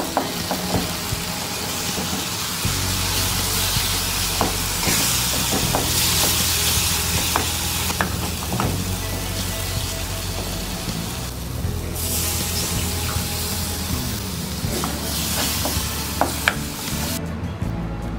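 Onion-tomato masala sizzling in a nonstick frying pan while a wooden spatula stirs and scrapes through it, with scattered clicks of the spatula against the pan. The sizzle cuts off suddenly near the end.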